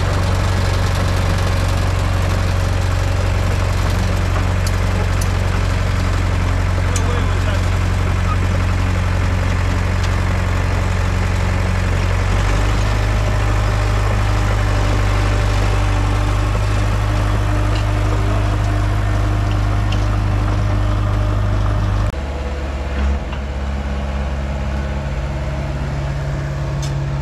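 Komatsu D31 bulldozer's diesel engine running steadily close by. Its pitch steps down about halfway through, and near the end it sounds farther off and quieter.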